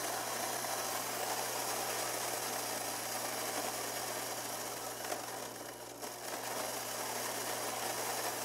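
Electric coffee grinder running steadily as it grinds coffee beans: a low hum under an even whir, with a slight dip about six seconds in.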